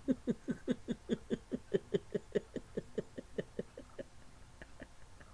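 A man's voice making a rapid string of short, clipped pitched sounds, about five a second, growing fainter and sparser after about four seconds.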